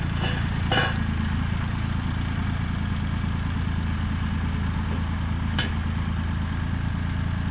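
Road roller engine running steadily at a constant speed, with a brief click about five and a half seconds in.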